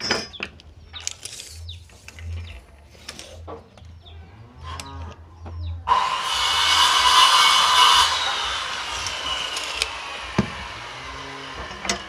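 Light scratching and tapping of pencil and steel tape on timber, then about six seconds in an electric power tool starts abruptly, runs loudly for about two seconds and winds down with a slowly falling whine.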